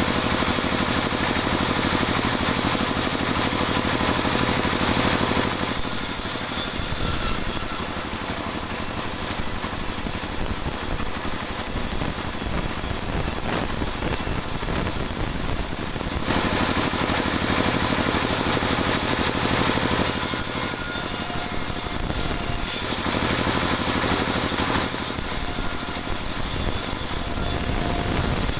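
Band saw running steadily while it rips dry teak offcuts into 2 cm boards. Its sound changes in tone several times as the wood is fed through the blade.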